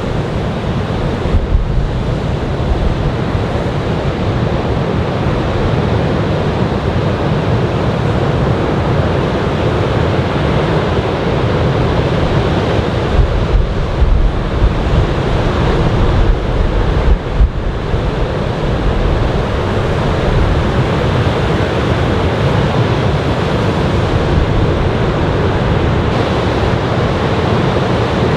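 Surf from a typhoon swell breaking and washing ashore in a steady rush, with wind buffeting the microphone in a low rumble.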